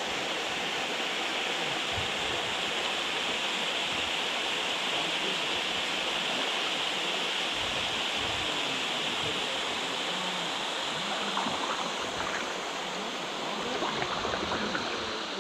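Small waterfall spilling over a rock ledge into a creek, a steady rush of falling water.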